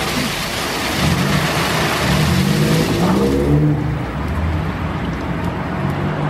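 Istobal M1 rollover car wash at work: rotating brushes scrubbing a car under hissing water spray, with the hum of the brush and gantry motors underneath. The spray's hiss cuts off suddenly about three and a half seconds in, leaving the wavering motor hum and brush swish.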